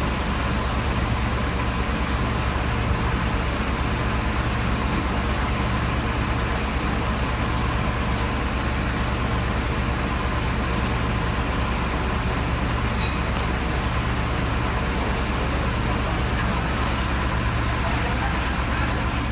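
Heavy truck engine running steadily at close range, a low unbroken drone with no change in pitch.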